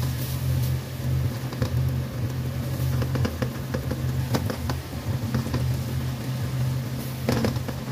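Silicone spatula stirring and scraping food around a wok, with short clicks and scrapes in clusters about three seconds in and again near the end, over a steady low hum.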